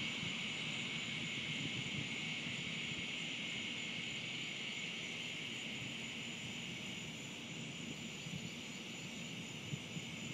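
Steady outdoor chorus of insects, a continuous high buzzing that does not change, over a low background rumble.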